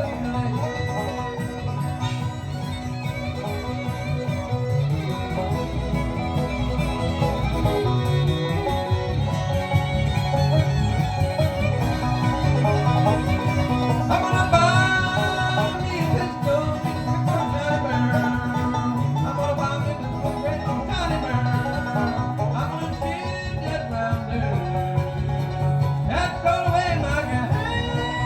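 Live bluegrass band playing an instrumental break, with banjo and guitar picking over a steady rhythm.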